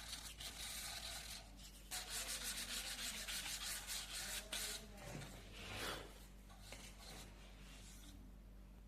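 Hand sanding: quick repeated rubbing strokes of abrasive on the piece, pausing briefly just before two seconds in and stopping about six seconds in.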